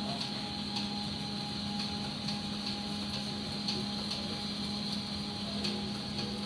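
Steady machine hum of reef-tank equipment, with a low tone and a higher tone over a hiss, and a few faint ticks scattered through it.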